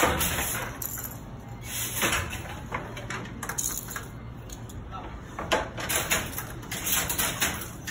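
Irregular wooden knocks, clicks and sliding scrapes from a Banarasi handloom being worked by hand, with small shuttles handled and laid across the warp.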